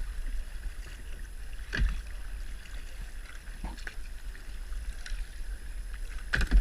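Paddling a tandem kayak on the sea: the paddle blade dips into the water a few times, about every two seconds, over a steady low rumble of wind on the head-cam microphone.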